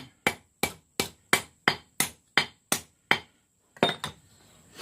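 Hammer blows on a hot railroad-rail workpiece over the anvil, about nine sharp strikes at roughly three a second, then a short pause and two lighter taps near the end. The blows are straightening the freshly rounded point of the stake anvil back into line.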